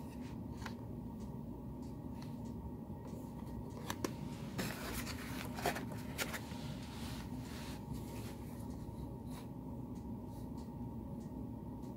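Quiet handling sounds: a plastic-cased multimeter and its cardboard box being handled and rummaged through, with scattered light clicks and a stretch of rustling near the middle, over a steady low hum.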